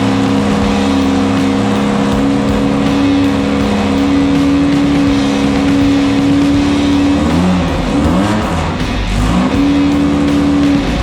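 Engine of a VW-powered Class 9 desert buggy running at steady speed. About seven seconds in, the revs dip and rise several times, as with lifting off and reapplying throttle or shifting, then hold steady again.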